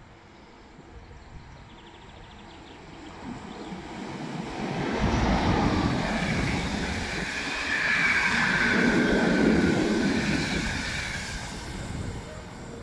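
Electric locomotive hauling a passenger train running through a station past the listener: the noise builds as it approaches, is loudest as the locomotive and coaches go by with wheels rumbling on the rails and a high hiss, then fades as the train moves away near the end.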